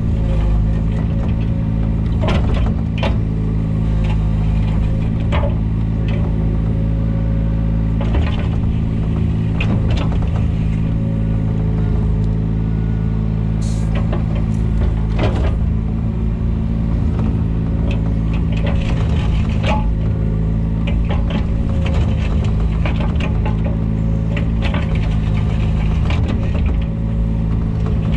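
Takeuchi TB125 mini excavator's diesel engine running steadily, with scattered knocks and clanks from the machine working.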